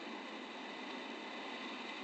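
Steady rush of wind on the microphone of a camera carried by a paraglider in flight, an even hiss with no change.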